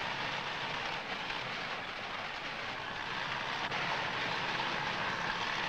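Wheel loader's engine running among demolition rubble, a steady noisy rumble and clatter.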